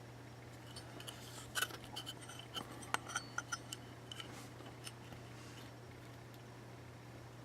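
A quick, irregular run of small, sharp clicks and ticks, about a dozen over some four seconds in the middle, over a steady low hum.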